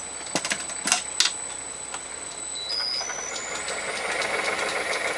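Metal lathe running, taking a slow finishing cut on a steel bar supported in a steady rest, with a rhythmic machine noise that grows louder after about two seconds; the steady rest's fingers riding on the rough-turned bearing surface add to the noise. A few sharp clicks come in the first second and a half, and a high thin ringing steps up in pitch several times around the middle.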